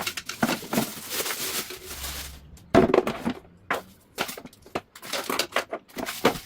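Parts of a dust collector kit being unpacked and handled: plastic packaging rustling, then a run of sharp clacks and knocks as hard plastic pieces are moved and set down.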